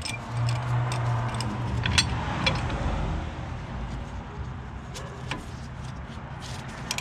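Scattered sharp metallic clicks and clinks, about half a dozen, from tools working a brake caliper while its piston is forced back with a C-clamp, over a low steady hum.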